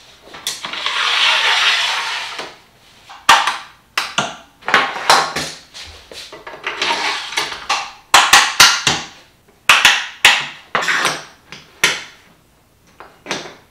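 Quick clamps being fitted and tightened to lock a Festool guide rail onto a plywood panel on a work table. There is a drawn-out sliding noise near the start, then a run of sharp clacks and knocks of the clamps and metal rail against the wood.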